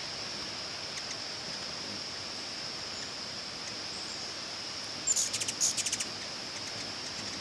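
Ruby-throated hummingbird giving a rapid burst of high, squeaky chattering chips lasting about a second, a little past the middle. A steady high-pitched drone runs underneath.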